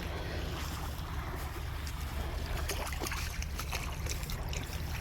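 Beach ambience: a steady low rumble of wind on the microphone over an even hiss of gentle water at the shoreline, with a few faint light ticks.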